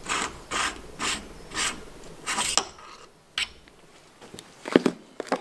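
Adjustable hand reamer cutting the new shaft bushings of a Ford Model A distributor housing, a rasping scrape with each turn, about two a second, on a light pass that only takes off the high spots. The scraping stops after about two and a half seconds, and a few light metal clicks follow near the end.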